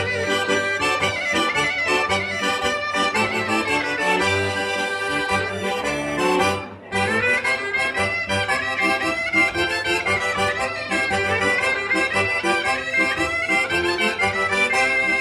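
Piffero, the double-reed shawm of the Quattro Province Apennines, and accordion playing traditional music together, the piffero's high wavering melody over the accordion. The music drops out for an instant about seven seconds in.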